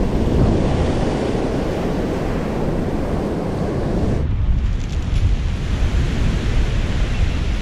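Surf washing onto a pebble beach, with wind buffeting the microphone. About four seconds in the sound changes abruptly: the hiss of the surf drops and the low wind rumble takes over.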